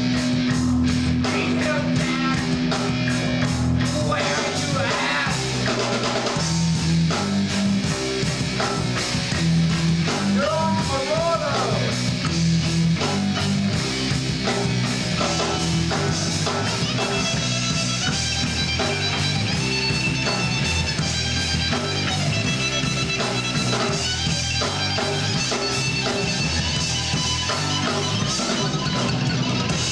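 A live rock band playing loudly: electric guitars and a drum kit in a steady, driving rhythm.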